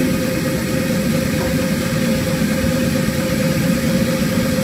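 Workshop machinery running steadily: a low drone with a constant hum through it and no hammer blows.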